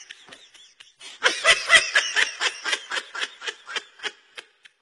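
A person laughing in quick breathy bursts, about five a second, starting softly, breaking into loud laughter about a second in and tapering off toward the end.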